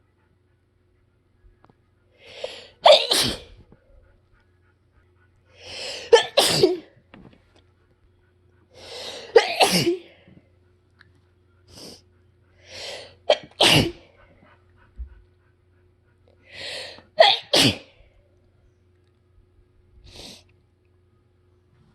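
A woman's harsh sneeze fit, set off by freshly mowed grass: five hard sneezes a few seconds apart, each after a drawn-in breath.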